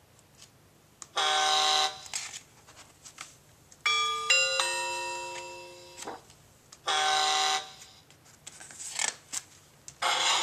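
Electronic sound effects from a children's play-a-sound book's speaker module: a short toy-train horn honk, then a ding-dong chime of several notes that rings away, then another horn honk of the same kind. A few light clicks fall between them, and a hissier sound starts near the end.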